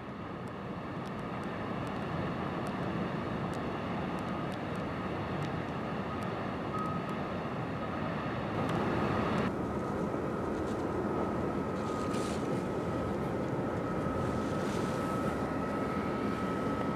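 Steady low engine drone with a thin, faint high whine that joins about seven seconds in and holds to the end. The higher part of the sound drops away abruptly about halfway through.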